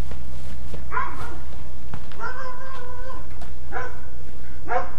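Dogs barking: four calls about a second apart, the second one drawn out for about a second at a steady pitch. A steady low hum runs underneath.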